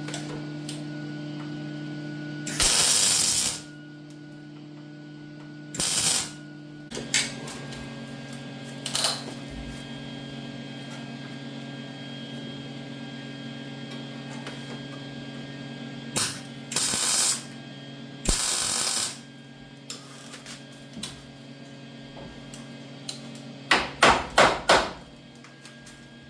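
A welder tack-welding a steel patch panel into a car's floor and inner rocker: several bursts of welding crackle about a second long, then four short tacks in quick succession near the end, over a steady low hum.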